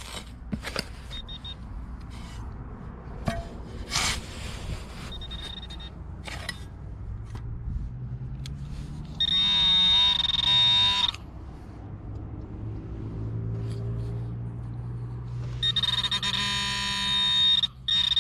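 A shovel scrapes and chops into sand and pebbles, then a handheld pinpointer metal detector sounds its high, warbling alert tone twice, each time for about two seconds, as its tip finds a metal target in the loose sand.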